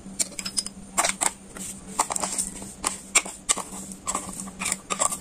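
Metal spoon scooping sugar from a bowl and tipping it into a glass jar: a string of light, irregular clicks and clinks of spoon on dish.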